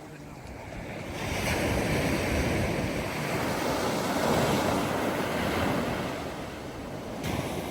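Sea waves breaking: a wave surges up about a second in, rushes loudly for several seconds, then washes back and fades near the end.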